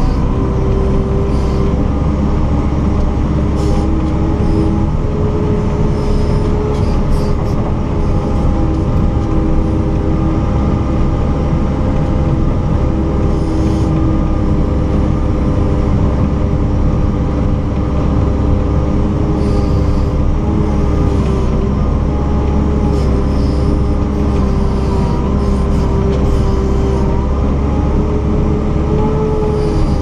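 JCB 4CX ECO backhoe loader's four-cylinder diesel engine running steadily under load as the front bucket pushes snow, heard inside the cab: a constant low rumble with a whine on top that drifts slightly in pitch.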